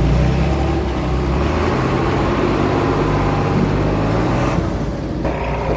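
Komatsu D21A bulldozer's diesel engine running steadily under load, its note shifting about two seconds in.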